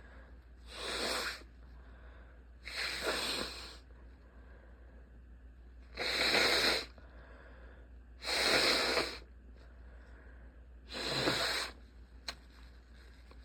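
A person in a sneezing fit: five breathy sneezes in a row, each under a second, about two to three seconds apart.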